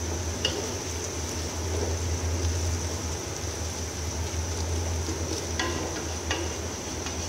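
Sliced onions, fried golden-brown, sizzling in oil in an aluminium pot as a wooden spoon stirs them, with a few light knocks of the spoon against the pot. A steady low hum runs underneath.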